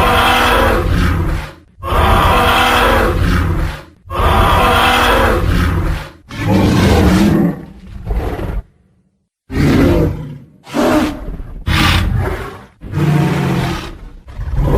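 Tyrannosaurus rex roar sound effects, one after another: a string of loud roars, each one to two seconds long, with a short silence about nine seconds in.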